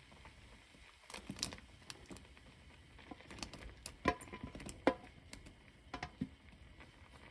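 Diced zucchini and then chunks of shiitake mushroom dropped into a pot of simmering doenjang stew, making soft plops and knocks. A metal tray clinks against the pot a few times about four to five seconds in, with short ringing tones, over the stew's low bubbling.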